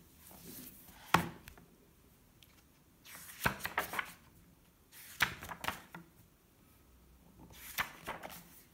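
Hardcover picture book being opened and its paper pages turned and smoothed flat by hand: a sharp knock about a second in, then three separate bursts of paper rustling and swishing.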